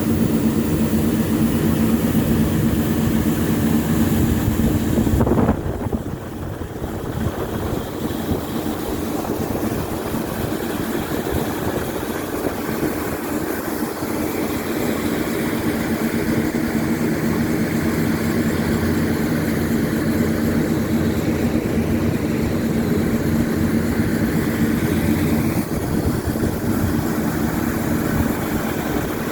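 Laverda 3500 combine harvester running steadily under load, its engine drone mixed with the noise of the threshing machinery; the level drops suddenly about five seconds in and then builds back.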